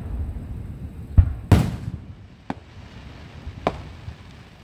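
Fireworks going off: a sharp bang about a second in, a louder one just after it, then two fainter cracks about a second apart, over a low rumble.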